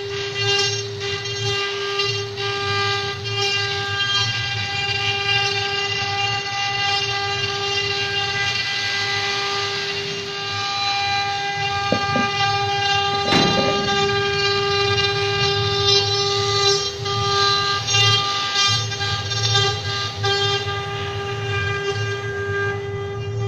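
Multi-spindle CNC wood router carving a relief panel: the spindles whine at one steady pitch over a hiss from the bits cutting the wood that rises and falls.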